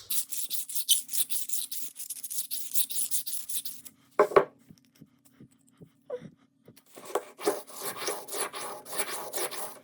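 A kitchen knife blade scraping in rapid strokes, as it is worked to check or make sure it is dull. There are two runs of strokes, with a short knock and a pause of a few seconds between them.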